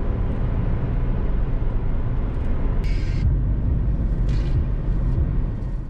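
Steady low rumble of a car driving, with brief bursts of higher hiss about three and four seconds in.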